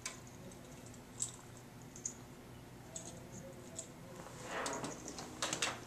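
Small plastic clicks and handling noise as float switch wire connectors are pushed together: single clicks about a second apart, then a busier run of clicks near the end.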